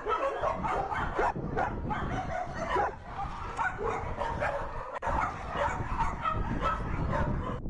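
Livestock guardian dogs barking and yipping at a bear, many short, irregular barks overlapping over a steady low rumble.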